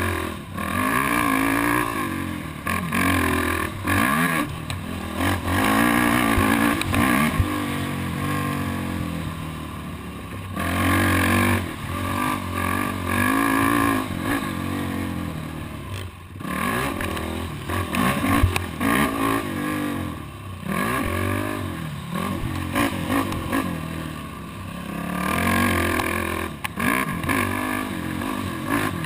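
Yamaha YFZ 450R quad's single-cylinder four-stroke engine heard on board, revving hard and easing off again and again as the rider works through the gears. Scattered knocks and rattles come from the machine over rough ground.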